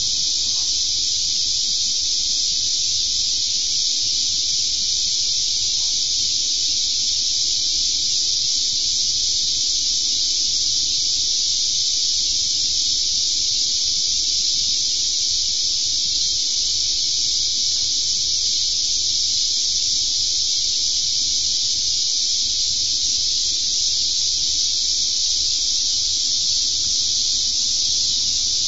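Steady, high-pitched insect chorus that holds an even, unbroken level.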